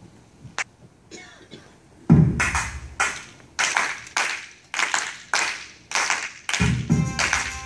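Recorded music starting: a loud low drum hit about two seconds in, then a steady beat of sharp percussive hits a little under two a second, with another low drum hit near the end.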